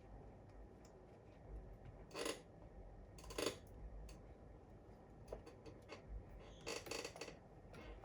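A few short scrapes and clicks of small tools and laptop parts being handled on a repair bench: one about two seconds in, another about a second later, and a quick cluster near the end.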